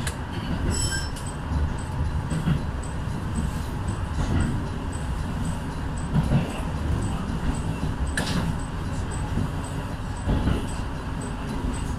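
Electric train heard from the driver's cab running along the track: a steady low rumble of wheels on rail with a few knocks, the sharpest about eight seconds in. A brief high beep sounds just under a second in.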